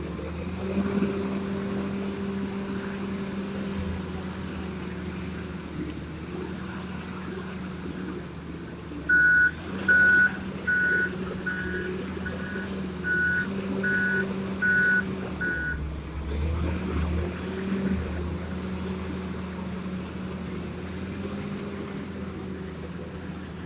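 Komatsu WA320 wheel loader's diesel engine running steadily, its pitch wavering a little as it works. About nine seconds in, its reversing alarm sounds about nine short high beeps, a little more than one a second, as it backs away from the dump truck.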